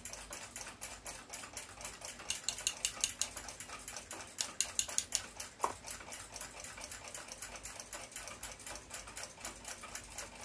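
Small sharp clicks and taps of the steel clock gong rod being worked into its brass mounting block. Two short runs of quick clicks come early and about halfway through, over faint steady ticking.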